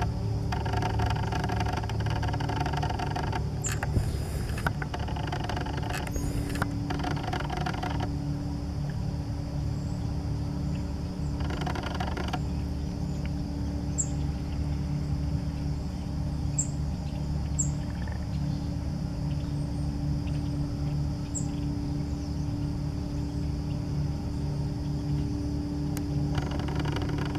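Steady engine drone with a low hum. A fuller band of evenly spaced tones swells and fades several times, and a few faint, short, high ticks come through.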